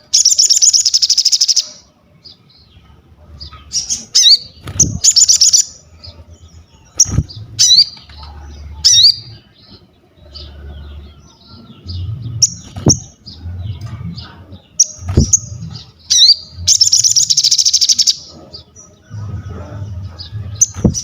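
Sogon, a sunbird, singing vigorously: two long, loud, rapid high trills, one at the start and one about seventeen seconds in, with sharp chirps and short whistled notes between them. A few sharp knocks and a low hum that comes and goes sit under the song.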